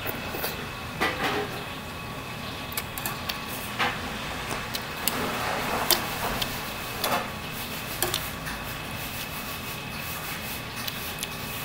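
Metal chopsticks clicking and scraping against a metal pan of tteokbokki and a plastic ladle, with a few short breathy puffs of blowing on the hot food, over a faint steady high hum.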